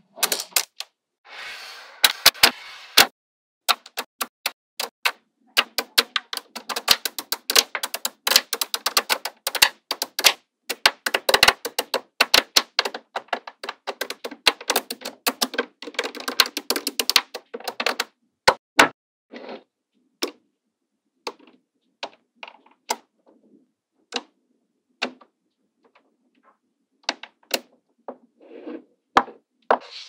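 Small magnetic balls clicking and snapping together as they are handled and pressed into place. Rapid runs of clicks through the first half or so, thinning out to scattered single clicks later.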